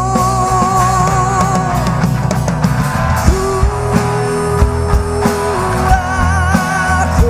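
Rock band music: drums, bass and guitar under a voice holding long, wavering notes, three of them in turn.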